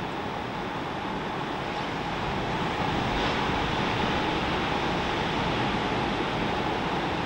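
Ocean surf breaking on the reef: a steady wash of wave noise that grows a little louder about three seconds in.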